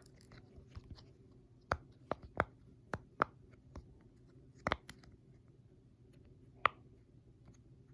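Silicone pop-it fidget toy bubbles being pressed one at a time: about ten short, sharp pops at an uneven pace, a couple of them in quick succession, with a longer pause near the end.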